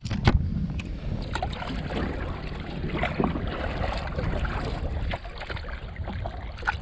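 Water splashing and lapping around a paddled kayak, with irregular short splashes from the paddle strokes over a steady low wind rumble on the microphone.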